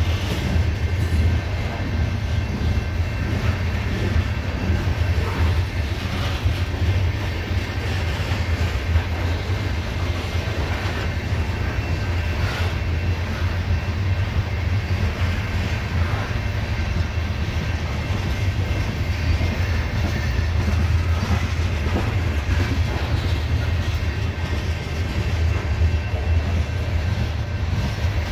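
CSX coal train's freight cars rolling past close by: a steady, heavy low rumble of steel wheels on rail, with scattered wheel clicks and clanks.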